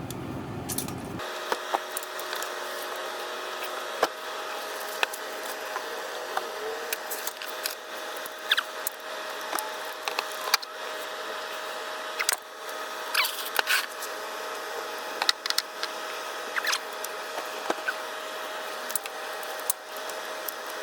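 Scattered metallic clicks, clinks and short squeaks of hand tools working on a seized bolt under the hood, a breaker bar and socket on a tight AC compressor mounting bolt, over a steady hum.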